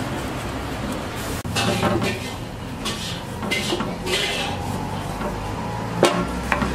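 Kitchen knife cutting a lemon into pieces on a small wooden block, a series of short slicing strokes with knocks of the blade on the wood. A sharp knock about six seconds in is the loudest.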